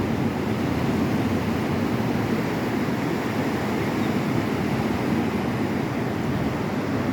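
Ocean surf washing steadily onto the beach, a continuous low rush of waves without distinct breaks.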